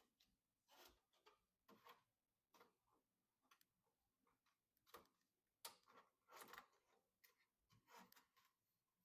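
Faint, irregular clicks, taps and short rustles of computer parts being handled and fitted during a PC assembly, with the loudest cluster a little past the middle.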